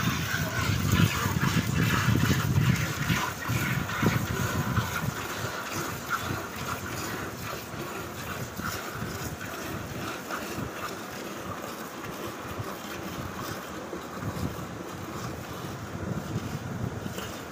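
A cow being milked by hand: rhythmic squirts of milk hitting the frothy milk in a steel bucket. Low rumbling noise is loudest in the first few seconds.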